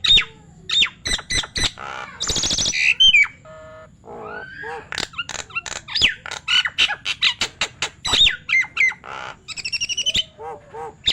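Nias hill myna calling: a fast, loud run of whistles, sharp clicks and harsh squawks.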